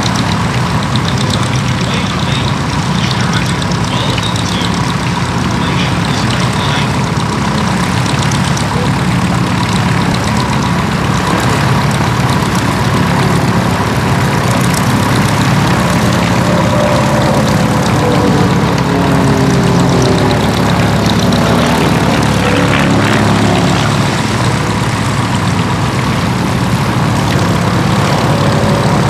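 Van's RV-8 aerobatic aircraft's piston engine and propeller running at display power overhead. The engine note is steady at first, then rises and falls in pitch through the second half as the plane manoeuvres and passes.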